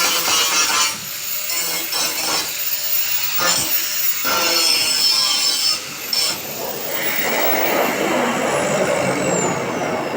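A tool cutting metal: a continuous rasping, scraping noise with a few short breaks.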